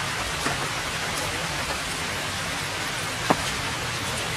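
Steady rain falling on a puddle and wet ground, with a few sharper single drop sounds, the loudest about three seconds in.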